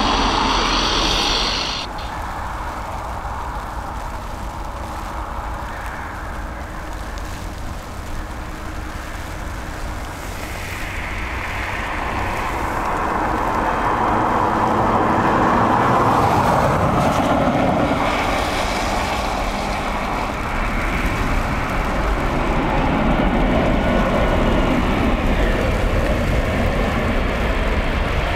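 Jet airliner engines heard across the airfield, a steady rushing noise. It drops back about two seconds in, then swells to its loudest about halfway through and stays strong.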